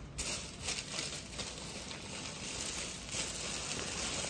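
Thin plastic shopping bag rustling and crinkling as a hand rummages through it, with a steady run of crackly rustles.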